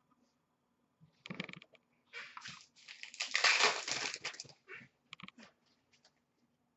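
Crinkling and rustling of torn foil card-pack wrappers and trading cards being handled, in several short bursts that are loudest about three to four and a half seconds in, followed by a few light clicks.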